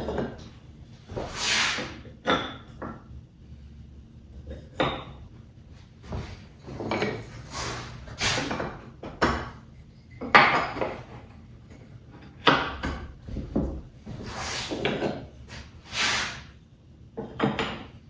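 Wooden trim pieces being handled and fitted onto a wood panel: a string of about a dozen irregular knocks and scuffs.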